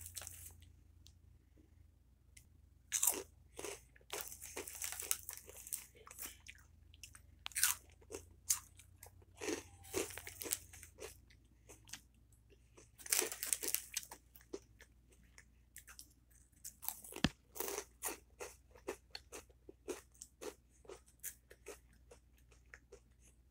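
Flamin' Hot Cheetos being crunched and chewed close to the microphone, in irregular bursts that settle near the end into a steady chew of about two crunches a second.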